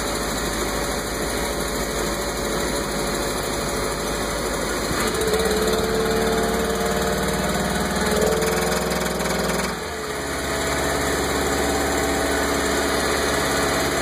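Mercruiser 5.7L V8 sterndrive engine running under way, knocking and running rough. The engine note changes and gets louder about five seconds in, then dips briefly near ten seconds.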